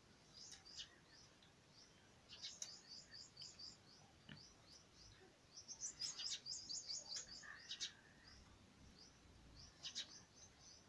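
Small birds chirping faintly in quick runs of short high chirps, busiest about six to seven seconds in.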